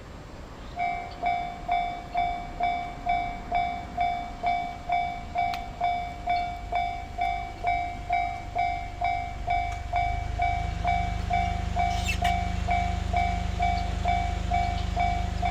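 Japanese railway level-crossing warning bell starting about a second in and ringing its steady "kan-kan" at about two strokes a second. About two-thirds through, the low rumble of an approaching train comes in under the bell.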